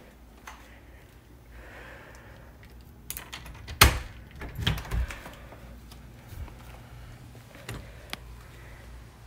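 An exterior door with a lever handle and deadbolt being unlocked and opened: a few clicks of the lock, a sharp latch click about four seconds in, then a few dull thumps as the door moves, with two fainter clicks near the end.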